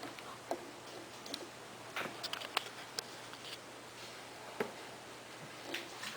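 A few faint, scattered clicks and taps over a low steady hiss, about seven in all, with no music or speech.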